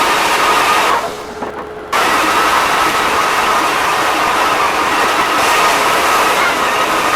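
Floor sander running steadily on heart pine flooring with 100-grit paper. It drops away briefly about a second in, then picks back up.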